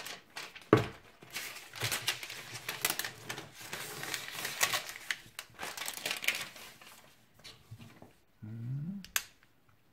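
Plastic shrink-wrap film being torn and peeled off a round box by hand: a dense crackling of the film that thins out after about six seconds.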